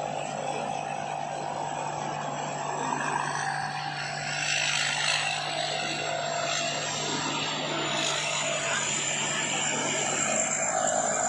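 Combine harvester running steadily: an even engine drone with a thin, high-pitched whine over it.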